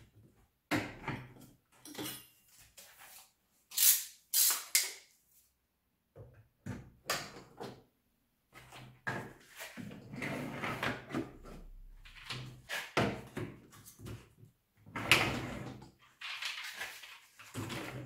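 Plastic nozzles, metal extension tubes and the ribbed suction hose of a Parkside wet and dry vacuum being handled and clipped into the storage holders on the vacuum's body: irregular knocks, clacks and rustles, with a few louder clacks among them. The vacuum itself is not running.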